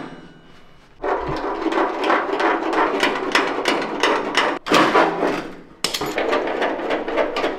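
Rapid knocking on the sheet-metal inner fender panels as they are fitted together, about four or five knocks a second. It opens with one sharp bang and runs in two stretches with a short break a little past the middle.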